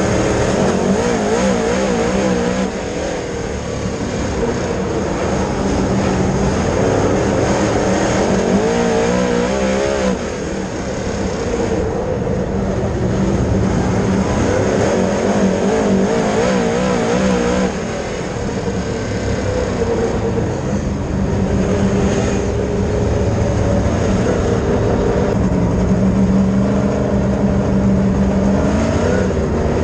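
Dirt late model race car engine running hard on track, its pitch wavering up and down, with the sound easing off briefly every seven or eight seconds as the car goes round the track.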